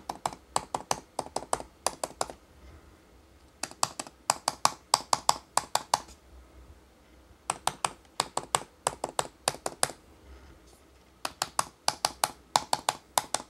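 Typing on a MacBook Pro's low-travel butterfly-switch keyboard: rapid key clicks in four bursts of about two seconds each, with short pauses between them.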